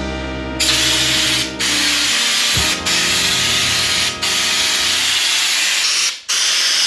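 Compressed-air spray gun spraying Raptor bed-liner coating in five hissing bursts, starting about half a second in with brief pauses between them.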